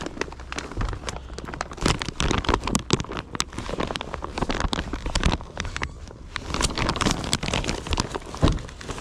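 Close rustling and crackling handling noise: a dense run of irregular clicks and scrapes, with louder bursts at several points.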